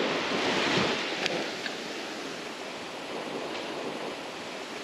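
Small waves breaking and washing up the sand, with wind on the microphone; a couple of faint clicks a little over a second in.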